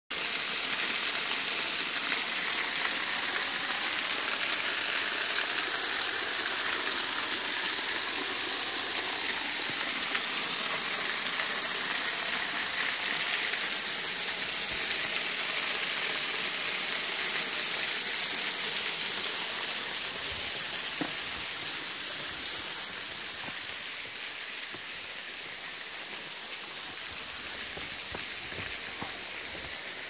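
A small waterfall splashing in thin streams onto rocks and a shallow pool, a steady hiss of falling water. It grows a little fainter in the last several seconds.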